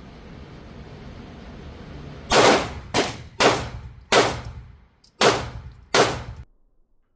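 Six pistol shots from a PSA Dagger compact 9mm, fired at an uneven pace over about four seconds, each with a short echoing decay; the sound cuts off suddenly after the sixth.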